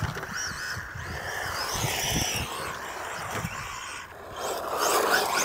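FTX Stinger 1/10 brushless RC car being driven, its electric motor whining up and down in pitch over tyre noise, getting louder again near the end.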